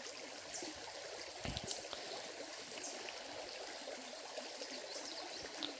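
Shallow creek water running over rocks in a steady, gentle babble. A faint knock comes about a second and a half in.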